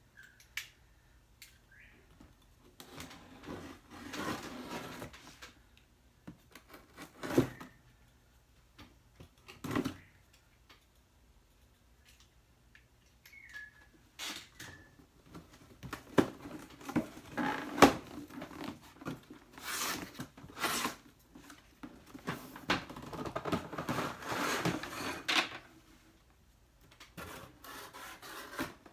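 A cardboard box and its packaging being opened and unpacked by hand: irregular scratching, tearing and rustling, with a few sharp knocks as parts are lifted out and set down.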